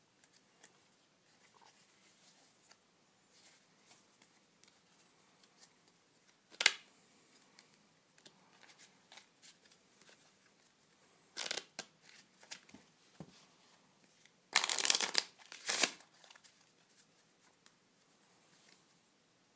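A deck of paper playing cards being handled: faint rustling and sliding, broken by a sharp card snap about a third of the way in, a couple more snaps past the middle, and a louder flurry of riffling cards about three quarters through.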